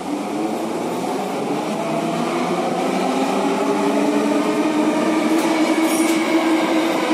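Metro train pulling away from a station, heard from inside the car: the traction motor whine climbs steadily in pitch and grows louder as the train accelerates. A couple of brief high-pitched noises come near the end.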